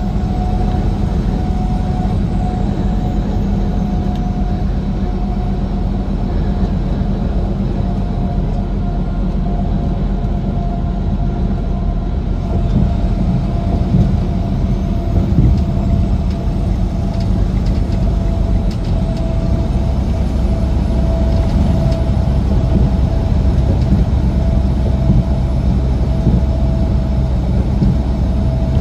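Steady low drone of a semi-truck's engine and tyres at highway speed, heard from inside the cab, with a faint steady whine running through it.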